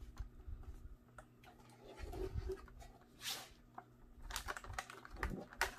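Clear plastic clamshell packaging being handled after it is slid out of a cardboard box: scattered plastic taps and clicks, with a short scraping rustle about three seconds in and a quick run of clicks near the end.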